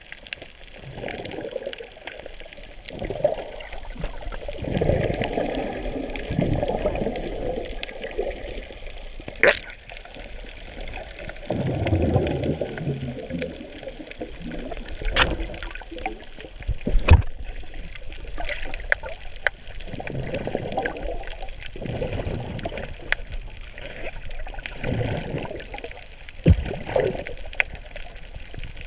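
Muffled rushing and sloshing of water heard underwater, swelling and fading every couple of seconds as swimmers move, with a few sharp clicks.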